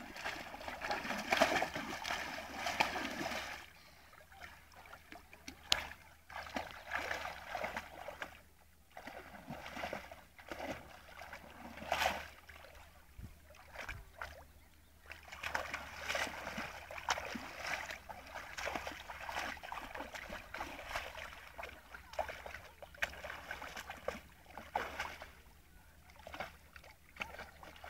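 Water splashing and sloshing around a dog wading in shallow water, in irregular surges with a few sharper splashes.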